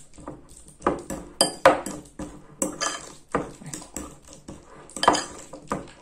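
Metal fork mashing avocado in a glass bowl: irregular clinks and scrapes of the tines against the glass.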